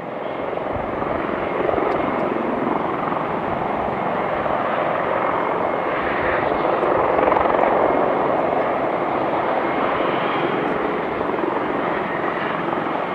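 Airliner jet engines (an Airbus A330-243's twin Rolls-Royce Trent 700 turbofans) at high power during the takeoff run: a loud, steady rushing roar that builds over the first two seconds, then holds.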